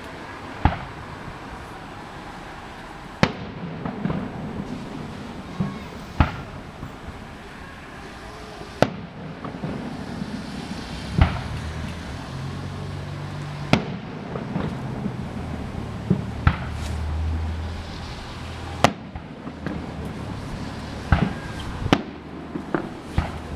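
Aerial fireworks going off: about a dozen sharp bangs at uneven intervals, with crackling between them and a low rumble swelling in the middle.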